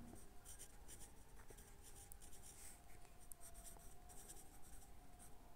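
Faint pencil scratching on notebook paper as a word is written out in many short strokes.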